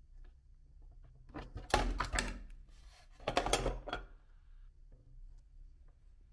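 Meat grinder crunching and rattling hard candy in two bursts, each a second or so long, over a faint low hum.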